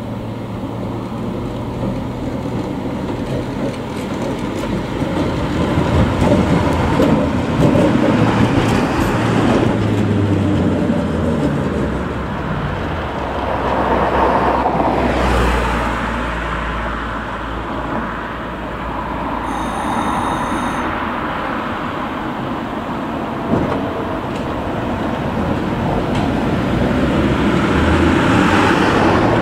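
An old motor tramcar runs along street rails, its motors and wheels rumbling as it approaches and passes, at its loudest in the middle. A brief high-pitched ringing tone sounds about two-thirds of the way through. A car passes near the end.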